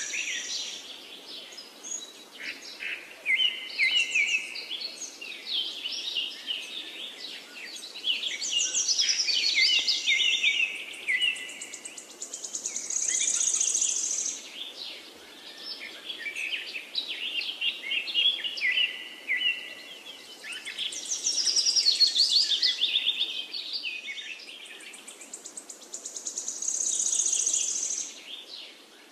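Small songbirds singing their dawn song: repeated phrases of quick high trills and whistled notes, several seconds apart and sometimes overlapping, over a faint steady background hiss.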